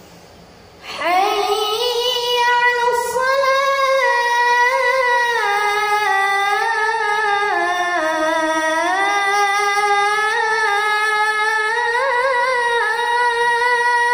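A boy muezzin chanting the adhan into a microphone: one long, ornamented phrase beginning about a second in, its pitch climbing, winding up and down, dipping about halfway through and rising again, held without a break.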